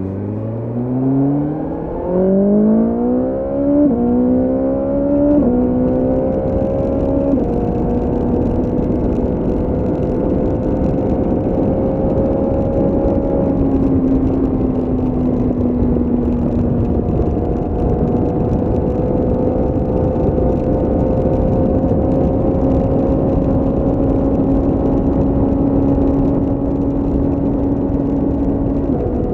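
BMW S1000R inline-four motorcycle engine accelerating hard through the gears, its pitch climbing and dropping back at four upshifts in the first seven seconds or so, then running at a steady cruising speed with a slight easing off and pick-up in the middle.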